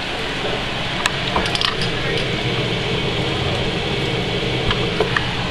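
A utensil stirring a pot on a gas stove, giving a few light clicks against the pot over a steady rushing background noise.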